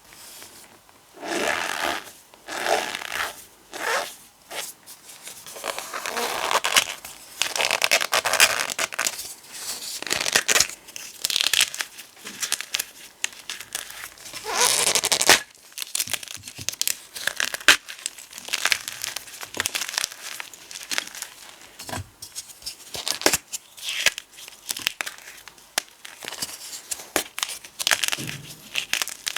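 Gym chalk and potato flour being crushed and crumbled, giving a long run of irregular crunches and squeaky scrunches with short pauses between them.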